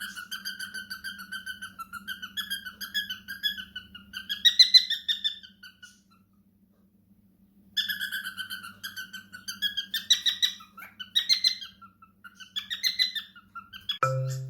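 Pet parrot chattering in two bouts of rapid pulsed chirps, with a pause of about two seconds between them. Music with mallet percussion comes in at the very end.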